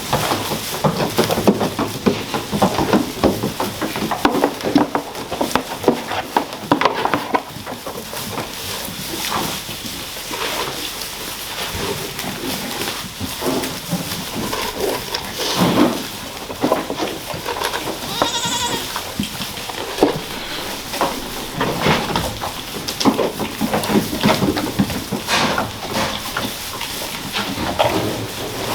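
Pygmy goats bleating, one clear drawn-out bleat about two-thirds of the way through, amid many short clicks and rustles as treats are broken up and handed out.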